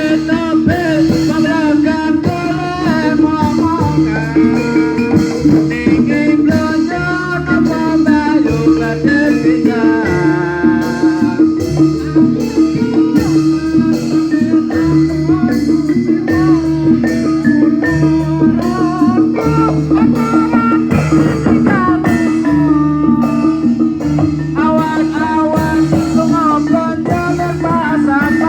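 Loud, steady Javanese barongan accompaniment music: a gamelan-style ensemble with evenly spaced drum beats and mallet percussion under a low drone, and a wavering melodic line above.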